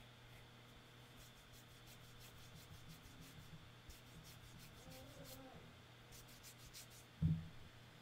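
Faint scratching by hand behind a microphone, a run of quick short strokes, with one low thump about seven seconds in.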